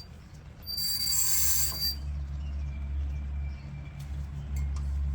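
Brake pads being pried loose in a disc-brake caliper bracket: a harsh metal-on-metal scrape with a high ringing squeal, about a second long, starting about a second in. A steady low hum runs underneath.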